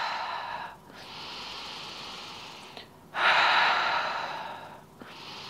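A woman's slow, deep breathing close to a clip-on microphone while she holds a squat pose: alternating louder and quieter breaths, with the loudest starting about three seconds in.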